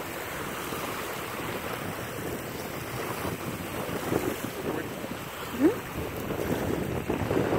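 Wind buffeting the microphone, with small waves lapping at a sandy shore. A short rising squeak sounds once a little past halfway.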